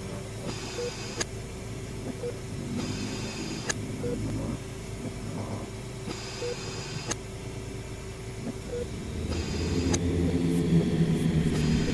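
Layered horror-hospital ambience: a steady low hum with short soft tone blips every second or two, scattered sharp clicks and patches of hiss. A low pitched drone swells up about nine seconds in and grows louder.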